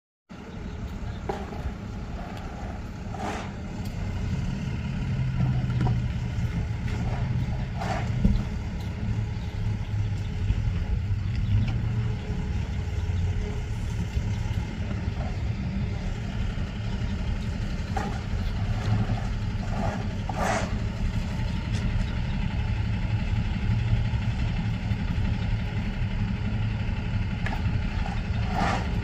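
A vehicle engine idling: a steady low rumble, with a few brief higher-pitched sounds now and then.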